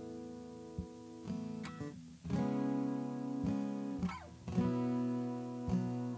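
Acoustic guitar strummed in slow chords, each one left to ring before the next strum every second or so.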